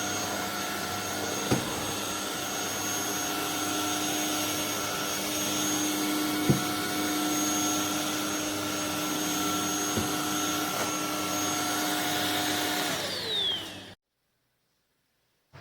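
Anyson cordless stick vacuum running steadily with a high motor whine, with three short knocks along the way. Near the end the motor winds down, its whine falling in pitch, and the sound cuts off.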